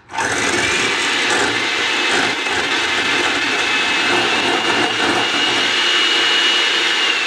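Electric hand mixer whipping egg whites to a froth in a stainless steel bowl. It starts suddenly and runs loud and steady, with a high motor whine that rises briefly as it comes up to speed, then holds.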